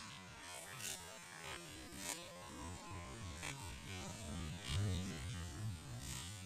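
A hooked giant snakehead thrashing at the water surface, several short splashes about a second apart, over a low steady hum.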